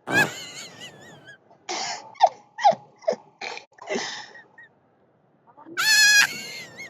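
Prank fart sound effects: a loud squeaky blast with a wobbling pitch at the start, a run of about eight short sputtering pops in the middle, and another long squeaky blast near the end.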